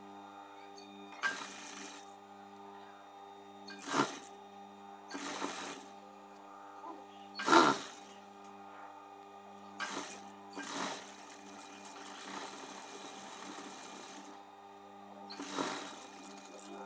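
Juki industrial sewing machine stitching a folded drawstring tape in short runs, about seven bursts each under a second, over a steady motor hum.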